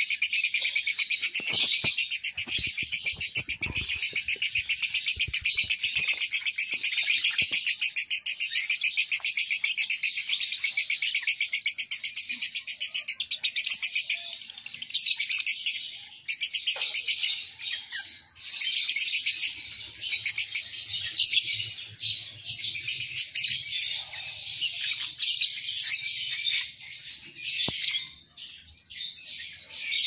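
Caged lovebirds chattering: a long unbroken run of rapid, high, repeated chirps for about the first half, then shorter broken bursts with brief pauses.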